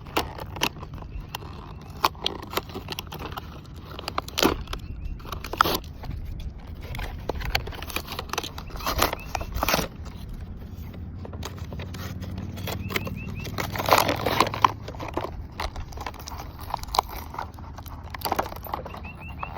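Packaging being opened and a pair of fishing pliers and a fillet knife being handled: irregular clicks, knocks, crackles and scrapes, busiest about two-thirds of the way in.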